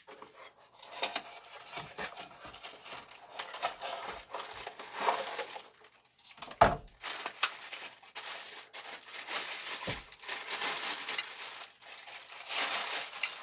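Packaging crinkling and rustling as a new drill press vise is unwrapped and handled. There is a sharp heavy knock about six and a half seconds in and a lighter one around ten seconds.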